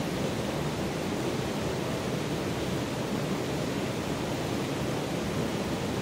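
A shallow, rocky stream running over and between stones: a steady rush of flowing water.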